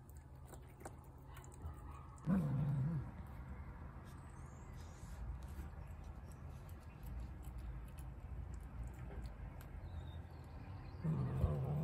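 A cat grumbling at another cat while they share a plate of food: a short, low, wavering growl about two seconds in, and another near the end.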